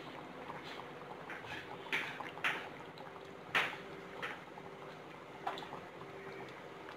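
Chicken meatball curry bubbling at the boil in a steel pot, with about five short wet plops and splashes as meatballs are dropped into it.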